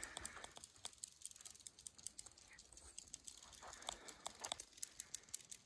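Faint, irregular high-pitched clicking of desert insects, which the hikers take for something in the cicada family. Soft footsteps scuff twice, at the start and about four seconds in.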